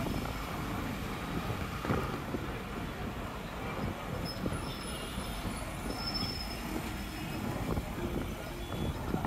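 Continuous rattling, rumbling mechanical noise with many small knocks and faint high squeals.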